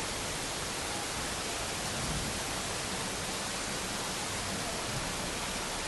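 Steady, even hiss of heavy rain and rushing floodwater running down a street.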